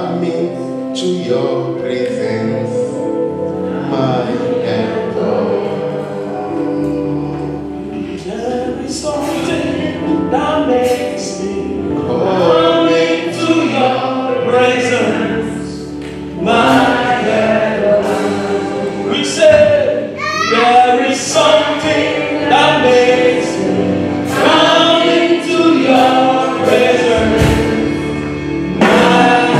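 Gospel worship music: a choir singing with instrumental accompaniment.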